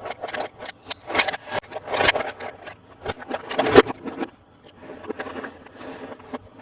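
Hands handling a plastic toy bulldozer and its packaging: irregular rustling, scraping and clicking, with a louder click a little under four seconds in.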